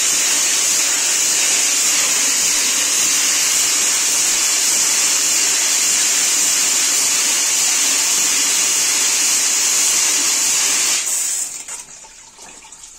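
Rotary drum filter's backwash cycle: the high-pressure pump drives water jets from the spray bar onto the drum screen, a loud, steady spray of water that cuts off about eleven seconds in.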